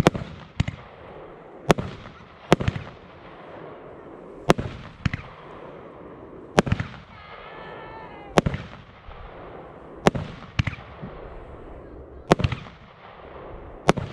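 Röder Feuerwerk 'Blau! Orange & Lemon' firework battery firing single shots, about eight in all, roughly every one and a half to two seconds. Most shots come as a pair of bangs about half a second apart, the launch and then the shell breaking in the air.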